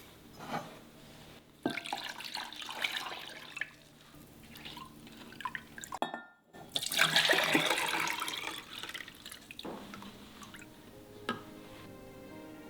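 Water running and dripping in a sink, in irregular splashes, with a brief break about six seconds in and a louder stretch of water just after it.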